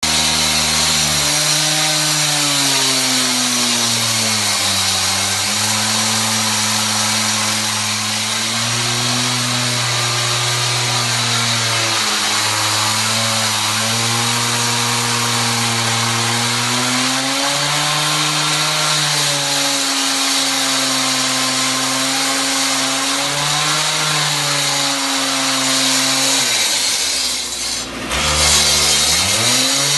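K12 concrete saw's two-stroke engine running, its pitch wandering up and down, over a steady high hiss. Near the end the engine speed drops sharply, then climbs straight back up.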